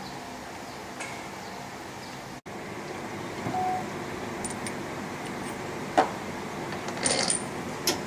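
Sharp metal clinks, one about six seconds in and a short clatter just after seven, as the steel punch and die of a hydraulic knockout punch are handled and fitted against a steel box panel, over a steady low hum.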